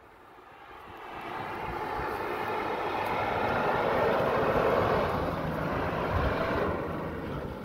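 Pickup truck engine working hard under load as the truck climbs a steep dirt slope, growing louder as it comes up past and easing off near the end.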